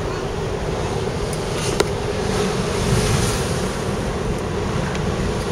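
Steady road and engine noise inside the cabin of a moving car, with one sharp click about two seconds in.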